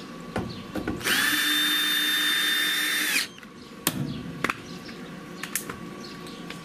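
Cordless drill/driver running steadily for about two seconds, driving a Torx T27 bolt into the dryer's door hinge, then stopping sharply. A few short sharp clicks follow.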